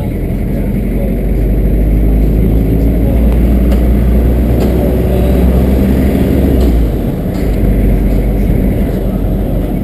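Car driving along a city street: engine running and road noise, with a heavy low rumble that eases about seven seconds in.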